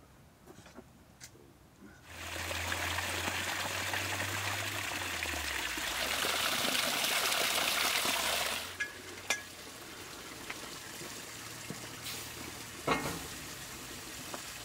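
Water pouring steadily for about six seconds, starting suddenly about two seconds in and cutting off before the middle. A few light knocks and clicks follow over a quieter hiss.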